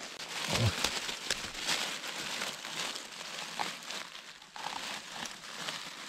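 Dry fallen leaves and forest litter rustling and crackling close by, with many irregular small crunches.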